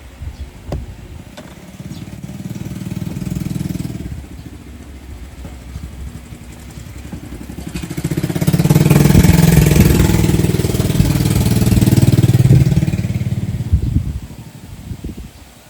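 A motor vehicle's engine going by, swelling loud about halfway through and dying away a little before the end, with a few small clicks before it.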